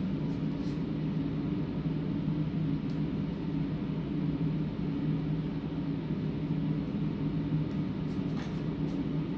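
Steady low hum of a room ventilation system, with a few faint clicks from the wooden stick and jar as mold rubber is spread.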